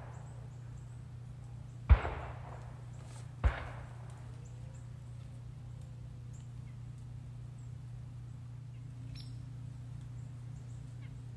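Two gunshots from a deer-hunting gun, about a second and a half apart, each trailing off in an echo.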